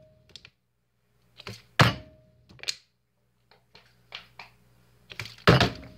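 Plastic water bottle flipped and landing with a sharp thunk about two seconds in, and again near the end, with a few lighter knocks and clicks between.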